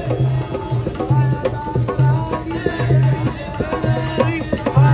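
Music with a steady beat of low drum strokes, about two a second, under a wavering melody line.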